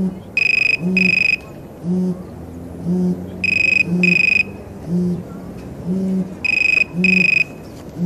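Telephone ringing in pairs of short electronic rings, the British double-ring pattern, every three seconds or so. A low buzz pulses about once a second underneath.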